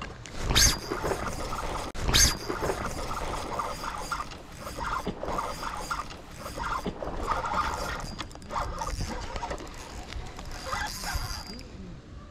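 Spinning reel cranked to retrieve a lure, its gears whirring and rattling in uneven spells. Two loud thumps come about half a second and two seconds in.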